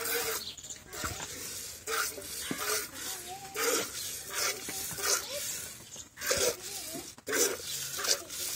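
Cow being milked by hand: squirts of milk hiss into a steel pot already holding milk, in an uneven rhythm of about one squirt a second.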